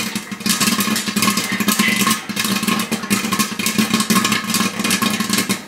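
Popcorn kernels popping vigorously in a covered metal pot on a hot stove: a dense, rapid, irregular crackle of many pops.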